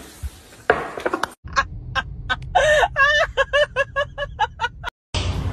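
A quick run of short, pitched animal calls, about three a second, some bending up and down in pitch, over a low steady rumble. The calls begin about a second and a half in and stop suddenly near the end.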